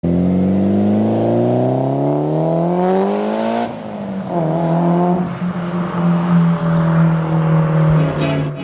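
Mitsubishi Lancer Evolution VIII's turbocharged 2.0-litre four-cylinder, fitted with an upgraded turbo, accelerating away. Its pitch climbs for about three and a half seconds, drops sharply at an upshift, then holds nearly steady as the car drives off.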